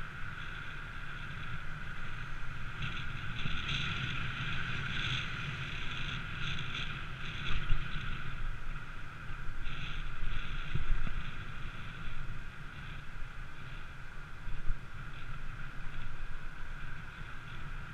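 Wind buffeting the camera microphone and road noise while riding along a street, with a steady high-pitched hum underneath and brief stretches of louder hiss.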